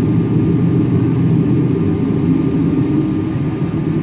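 Jet airliner cabin noise while taxiing: the engines and airframe give a steady low hum heard from inside the cabin.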